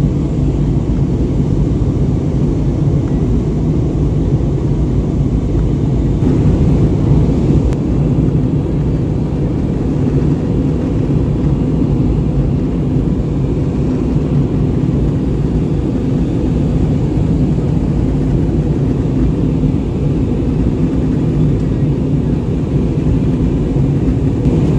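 Jet airliner in flight heard from inside the cabin: a steady low rumble of engines and rushing air.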